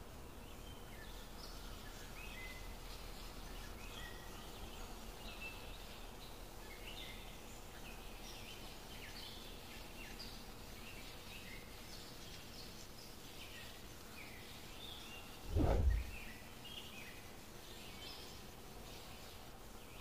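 Woodland ambience: many small birds chirping and calling over a faint steady hiss. About three quarters of the way through comes one brief low thump, the loudest sound.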